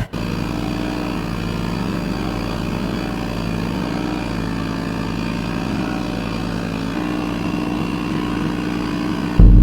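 An engine running steadily at an even speed. Near the end it cuts abruptly to a much louder engine.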